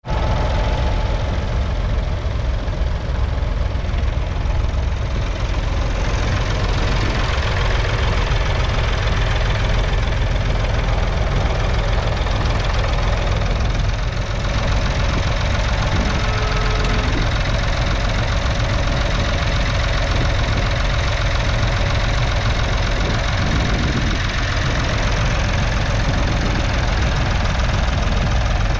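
1965 David Brown 770 Selectamatic's 2.4-litre three-cylinder diesel engine running steadily under load, pulling a two-furrow mounted plough through the soil.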